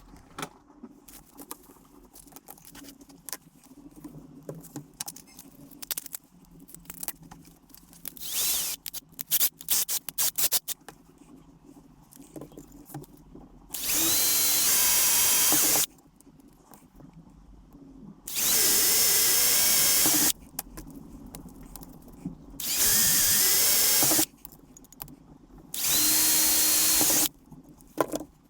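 A handheld power tool runs in four bursts of about two seconds each, with pauses between. Before the first burst there are small clicks and handling rattles.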